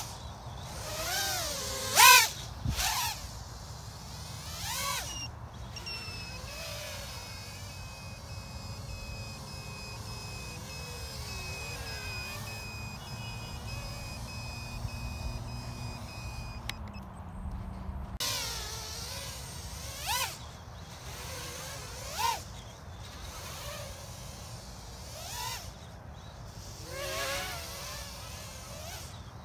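Small acro FPV quadcopter with 1105 6000 kV brushless motors on 3S, spinning 3-inch props, whining in glides that rise and fall with the throttle. There is a sharp loud throttle punch about two seconds in, a long steady whine through the middle, and more short punches later.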